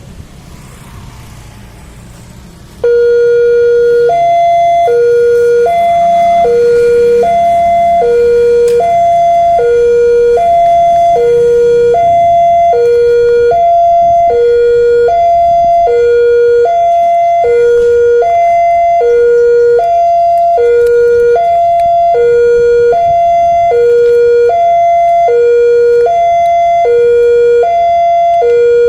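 Railway level-crossing warning siren that starts abruptly about three seconds in, alternating steadily between a low and a higher electronic tone, one high-low pair about every second and a half, warning that a train is approaching. Road traffic is heard before it starts.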